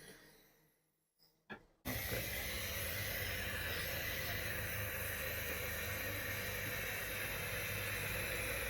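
A fridge compressor, rewired as the air pump of a homemade nebuliser, runs with a steady low hum, under a continuous hiss of air and mist from the nebuliser mask. It cuts in suddenly about two seconds in, after a near-silent moment with a small click.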